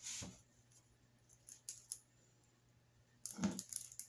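Small metal pliers clicking and snipping at the wire stems of a corsage: a sharp snip at the start, a few faint ticks, then a quick cluster of clicks near the end.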